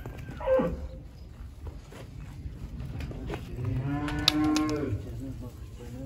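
Young calves mooing: a short call that drops sharply in pitch near the start, then a longer, steady moo of over a second about three and a half seconds in.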